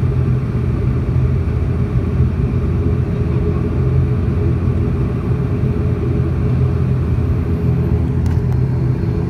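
ATR 72 turboprop engine and propeller running at low power while the aircraft taxis, heard from inside the cabin beside the wing: a steady low drone with a constant hum in it.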